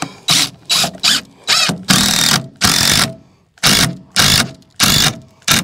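DeWalt cordless impact driver hammering a long wood screw into a pine roost in about a dozen short bursts, with one longer run about two seconds in, until the screw seats.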